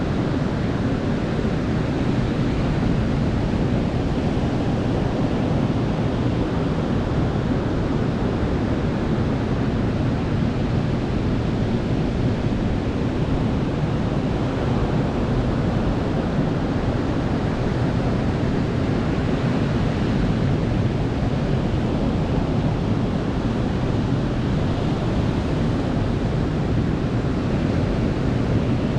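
Ocean surf washing onto a beach: a steady, even rush of waves, heaviest in the low range, with no single crash standing out.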